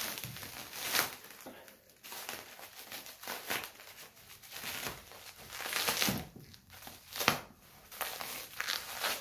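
Clear plastic wrapping crinkling and tearing as it is pulled off a bicycle frame by hand, in irregular rustling bursts, loudest about a second in and again around six and seven seconds in.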